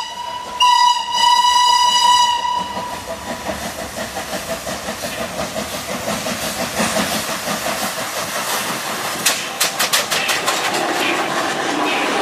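Steam train whistle sounding a blast that cuts off about two and a half seconds in. It is followed by the locomotive and cars running with a steady rhythmic beat and hiss, and a quick series of sharp metallic clanks around ten seconds in.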